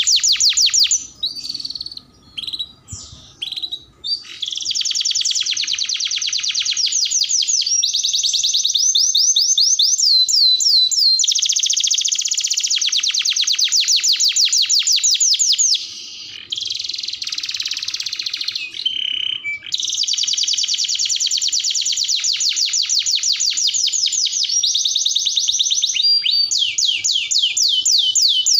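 Domestic canary singing a long song of rapid trills, each phrase a fast run of repeated high notes running straight into the next. It stutters with scattered single notes for the first few seconds, and a scratchier phrase comes about two-thirds of the way in.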